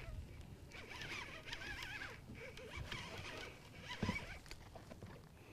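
Faint outdoor quiet with thin warbling chirps, like distant birdsong, and soft rustling. A single sharp click comes about four seconds in.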